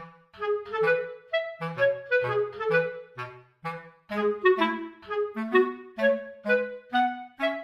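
Background music: a light, bouncy tune of short, quickly fading notes over a simple bass line.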